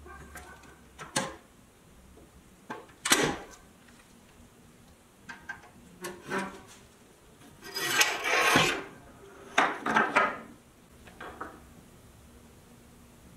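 Pliers working the wheels and axles off a 1962 Tonka pressed-steel toy pickup: irregular metal-on-metal clicks and scrapes, with parts knocking on a wooden workbench. The loudest is a sharp knock about three seconds in, and there is a longer spell of scraping about eight seconds in.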